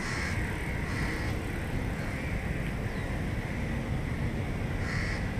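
Steady low rumble of distant city traffic, with short bird calls three times: at the start, about a second in and near the end.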